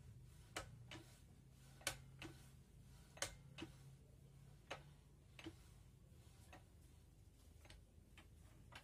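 Sharp metallic clicks and knocks, mostly in pairs, as the hand lever of a bench wood-mortising machine is worked up and down. The clicks are loudest in the first half and fainter later.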